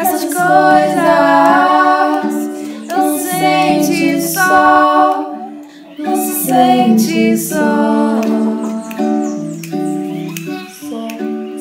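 Female voices singing a song together to a plucked acoustic string accompaniment.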